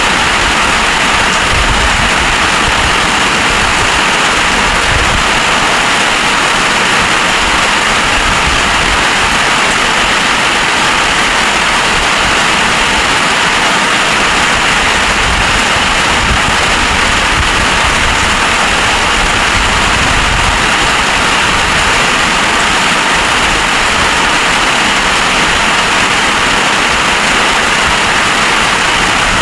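Heavy rain pouring down steadily in a storm, with gusts of wind rumbling on the microphone.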